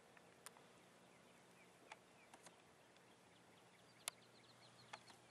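Near silence: faint outdoor ambience with a few soft sharp clicks, the loudest about four seconds in. From about four seconds in comes a faint rapid series of high chirps, about five a second.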